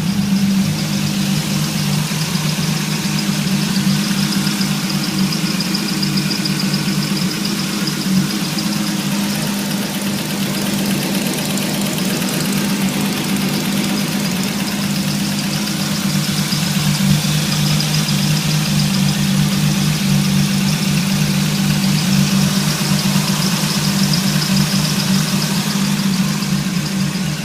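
BMW E30 engine idling, a steady running sound with a slight unevenness. The car has a misfire: it idles rough with the mass airflow sensor plugged in and smoothly with it unplugged.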